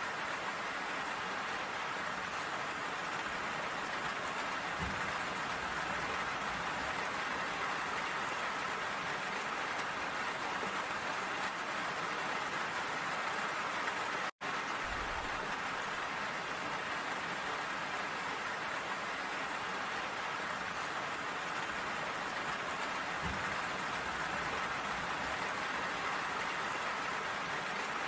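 Steady rain falling, an even hiss with no letup. The sound cuts out completely for an instant about halfway through, then resumes unchanged.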